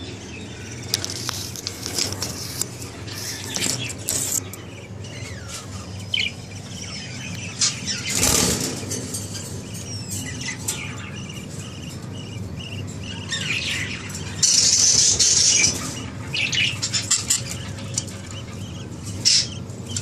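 Budgerigars chirping and chattering in short, high calls. About fourteen and a half seconds in there is a louder noisy burst lasting about a second and a half.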